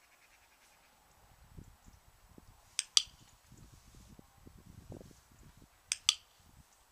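Two sharp double clicks about three seconds apart, each a pair of clicks a fraction of a second apart, over a low, uneven rumble of wind on the microphone.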